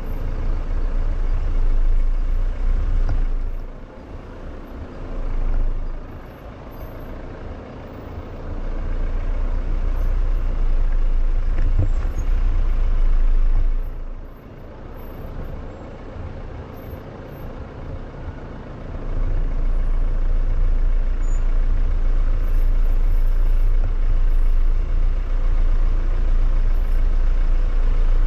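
Jeep SUV driving slowly down a rutted dirt trail, heard from the hood as a heavy low rumble of engine, tyres and wind on the microphone that swells and drops several times, then stays loud for the last third.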